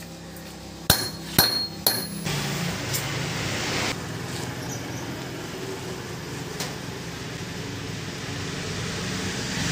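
Hammer striking a small metal plate on a steel block: three sharp metallic blows about half a second apart, each ringing briefly, about a second in. After them comes a steady rushing noise.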